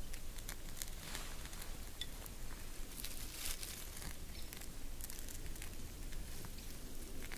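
Dry tinder bundle rustling and crackling with irregular small clicks and crinkles as it is handled and a freshly lit small fire catches, over a steady low rumble.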